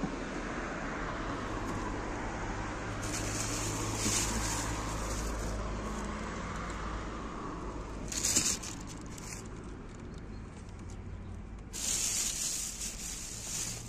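Plastic bags rustling and crinkling in three spells as stuffed toys are pulled out of a dumpster, the last near the end, over a steady low hum.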